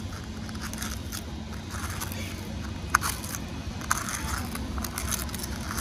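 Metal spoon stirring and scraping a mix of powdered sugar and baking soda inside a small paper cup: a steady run of soft gritty scrapes, with a couple of sharper clicks about three and four seconds in.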